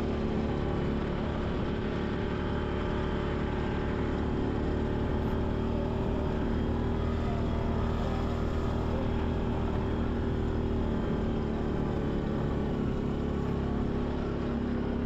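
Off-road vehicle's engine running steadily while driving over a stony gravel track, with rough road noise mixed in.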